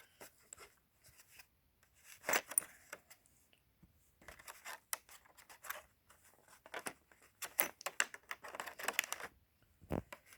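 Small metal hand tools being handled: irregular clicks, scrapes and light rattles as an M6 tap is fitted into its tap wrench from a tap and die set, with a single dull knock near the end.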